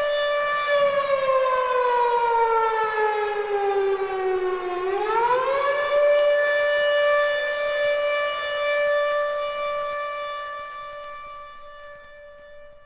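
Air raid siren sounding the all-clear: one steady, piercing tone that sags slowly in pitch, winds quickly back up about five seconds in, then holds and fades away near the end.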